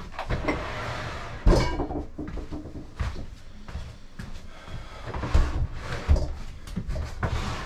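Irregular knocks, clunks and clatter from hands working inside a bathroom vanity cabinet, with the loudest knock about a second and a half in.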